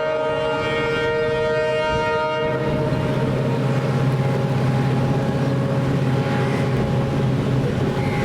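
Locomotive air horn sounding a long, chord-like blast that stops about two and a half seconds in, over a steady hiss of heavy rain. The passing express train's steady low running hum carries on after it.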